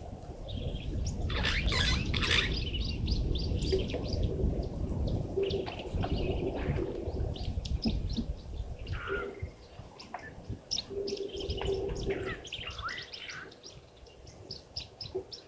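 Small birds chirping and twittering throughout, with a dove cooing at intervals. A low rumble underlies the first half.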